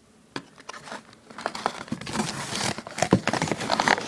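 Cardboard box packaging and wrappings rustling, crinkling and scraping as hands take items out of the box, with several sharp clicks; it thickens into a steady run of crackling about halfway through.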